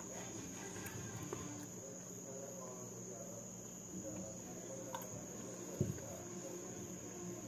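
A cricket trilling steadily at a high pitch over the faint sounds of someone eating by hand. About six seconds in, a small metal bowl is set down with a sharp knock.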